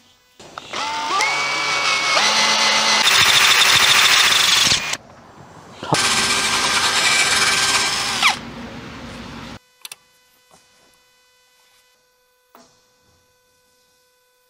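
Electric drill with a twist bit boring into a wooden block held in a vise, run in two bursts of a few seconds each. The motor spins up with a rising whine, and the second burst ends as the motor winds down with a falling pitch.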